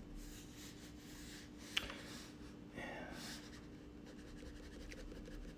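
Black Crayola crayon scratching short strokes across drawing paper, faint, with a louder stroke or tap about two seconds in.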